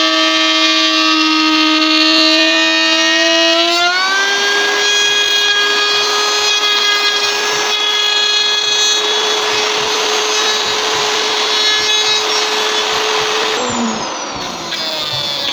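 Electric power tool motor whining steadily, with a grinding hiss of the cut. The pitch steps up about four seconds in and dips sharply then climbs back near the end, as the load on the tool changes.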